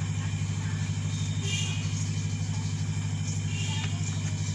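A steady low mechanical drone with a fast, even pulse, the loudest sound throughout. Two brief scratches of chalk on a blackboard come about one and a half and nearly four seconds in.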